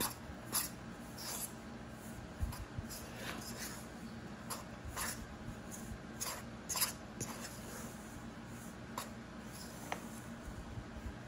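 A fork stirring crumbly pie crust dough in a stainless steel mixing bowl, its tines scraping and rubbing against the metal in irregular strokes as water is worked into the flour and lard. The strokes come thick at first and grow sparser in the second half.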